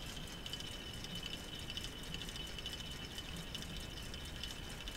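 Faint steady high whine with light plastic clicking: the small electric motor of a solar-powered K'nex model engine turning its crankshaft, camshaft and rockers over slowly.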